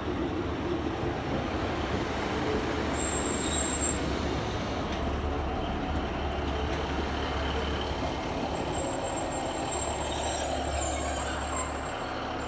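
Class 150 Sprinter diesel multiple unit's underfloor diesel engines running with a steady low hum as the train draws slowly along the platform, with a thin high squeal from the brakes or wheels about three seconds in and again near the end.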